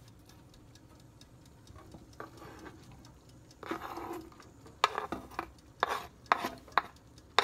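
Metal spoon scraping minced garlic off a plastic cutting board onto clams in their shells. It is quiet at first, then comes a scrape and a run of sharp taps and knocks in the second half.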